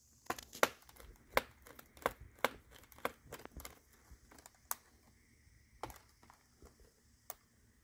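Small irregular clicks and scrapes of a precision screwdriver working at a screw in a ThinkPad T460 laptop's plastic keyboard frame. The clicks come thick for the first few seconds, then thin out to a few.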